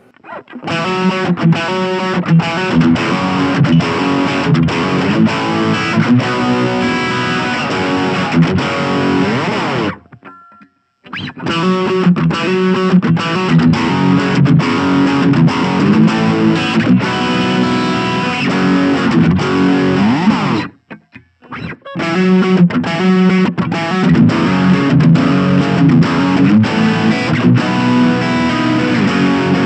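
Gibson Les Paul Standard electric guitar played through a Blackstar Fly 3 mini amp's overdrive: distorted riffing in three passages, each stopping briefly about ten and twenty-one seconds in.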